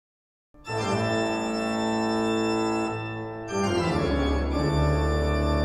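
Organ music: a held chord, then a second chord with a deep bass note about three and a half seconds in.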